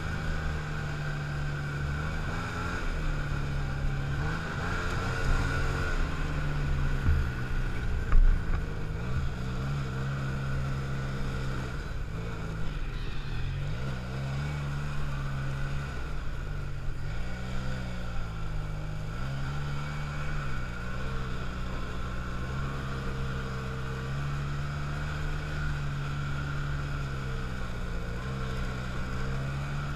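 Arctic Cat snowmobile engine running under way on a trail, its pitch rising and falling over and over with the throttle. There is a sharp thump about eight seconds in.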